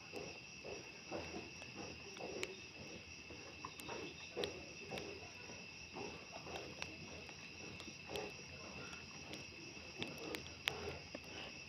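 Crickets chirring in a steady, continuous high chorus. It is faint, with soft irregular rustles underneath and a few sharp clicks, the loudest near the end.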